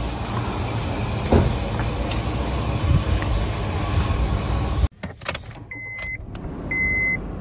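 Car sounds with a single knock about a second in. Then, after a sudden drop, a few clicks and a car's electronic warning chime, a steady high beep repeating about once a second.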